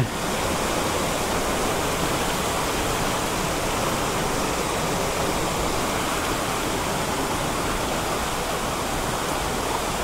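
Steady rush of a mountain stream pouring over rocks and small cascades into a pool.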